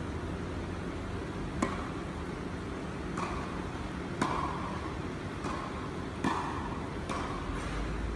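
Tennis balls struck by rackets during a rally: three sharp pops about two seconds apart, with softer thuds of the ball bouncing between them, over a steady low hum.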